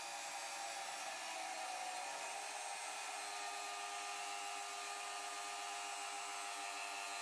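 Steady whirring hiss with a faint hum, unchanged whether or not the rod is arcing, typical of a stick welding machine's cooling fan running.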